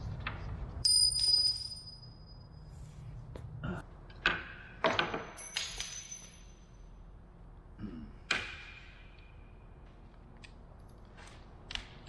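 Small metal hardware being handled: several sharp metallic clinks, a few of them ringing briefly, then lighter clicks near the end.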